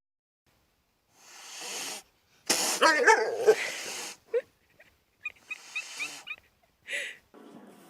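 A pet animal's calls in several separate bursts: a breathy noise, then a loud run of rising and falling cries about two and a half seconds in, followed by a few short chirps and a brief cry near the end.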